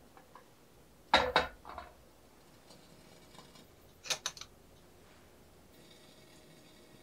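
Kitchen utensils clinking: two sharp knocks about a second in, then a quick run of metal-and-wood utensils rattling against a glass utensil jar at about four seconds as one is drawn out.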